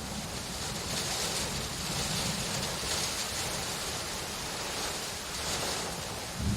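Steady rain hiss, with a low thunder rumble setting in near the end.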